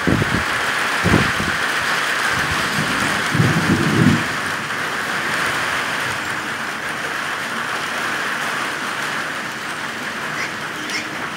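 Steady heavy rain hissing through a thunderstorm, with thunder rumbling in several deep surges during the first four seconds.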